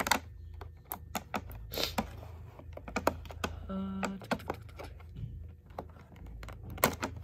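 Clear plastic packaging tray and wire twist tie being handled: irregular sharp clicks and crackles of the stiff plastic as a toy figure's tail is worked free, over a low steady hum.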